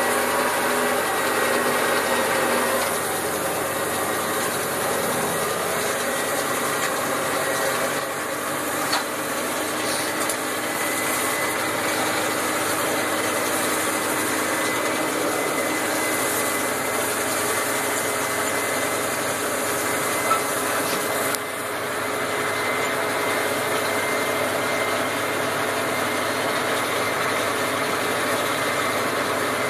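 Massey Ferguson 5455 tractor running steadily under load while it drives a Kuhn rotary rake, heard from inside the cab. A few faint clicks and knocks sound over it.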